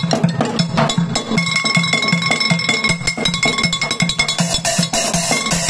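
Drumsticks playing a makeshift drum kit of recycled plastic buckets, water-cooler jugs and cooking pots: a fast, steady beat of low bucket thumps with sharper, ringing hits on top.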